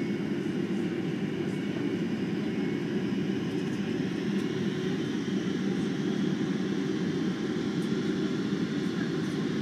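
Steady low drone of engines and rushing air heard inside the cabin of a Boeing 767 airliner on its landing approach.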